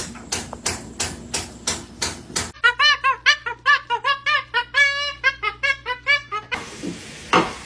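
Rhythmic tapping, three to four beats a second, followed by a quick tune of short repeated pitched notes, and a single sharp rustling burst near the end.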